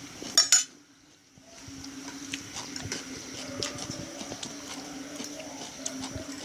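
Spoons and dishes clinking during a meal: two sharp clinks about half a second in, a short dropout, then light scattered clinks over a steady low hum.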